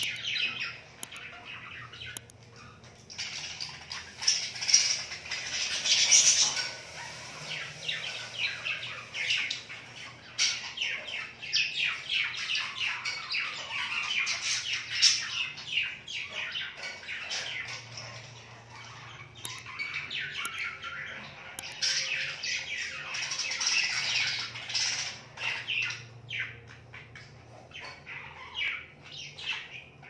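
Budgerigar chattering: a continuous warble of rapid chirps and squawks, with a short lull about two seconds in and a quieter stretch near the end.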